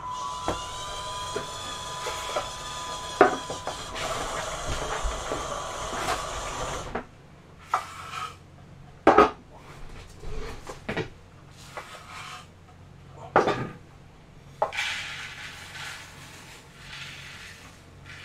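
Electric drive motors of a small robot tractor whining as it drives, rising in pitch as they speed up. Then several sharp knocks and clatter as the rice pots are handled, and near the end the hiss of rice being poured into the tractor's loader bucket.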